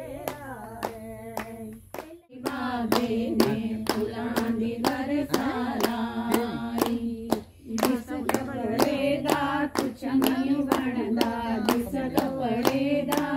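A group of women singing together, clapping their hands in a steady beat of two to three claps a second. The sound breaks off briefly about two seconds in, then the singing and clapping go on.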